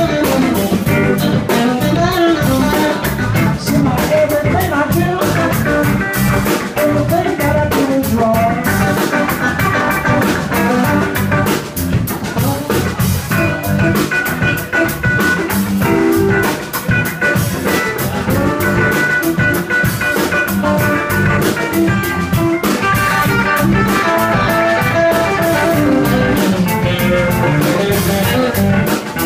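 Live blues band playing loud and steady: electric guitars over electric bass and a drum kit.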